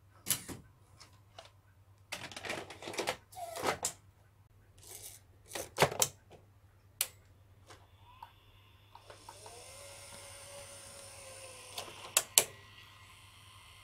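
Tape transport of a Panasonic AU-520 MII portable VTR loading tape. A series of clicks and clunks comes first, then from about nine seconds a steady motor whir with a whine that glides and settles, broken by two sharp clicks near the end as the threading finishes. The machine loads without its tape-slack error, its eight bad capacitors replaced.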